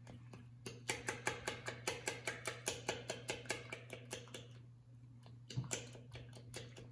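Fork beating eggs in a well of flour, clicking against the platter about four or five times a second, then slowing to a few stray taps just past halfway.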